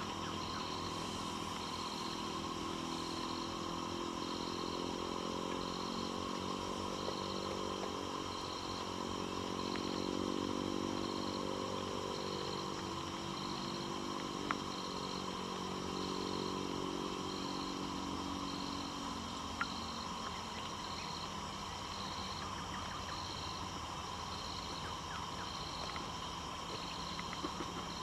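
A distant engine drone swells over the first several seconds and fades away by about two-thirds of the way through. Under it run a steady forest insect buzz and a high chirp pulsing about once a second.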